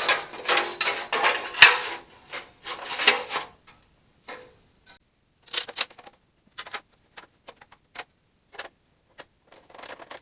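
Metal parts of a furnace blower assembly being handled and fitted together by hand: a few seconds of clattering and scraping, then scattered single clicks and clinks.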